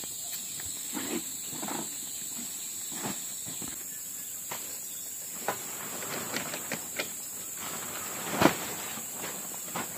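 Steady high-pitched drone of forest insects, with scattered short knocks and rustles; the loudest knock comes about eight and a half seconds in.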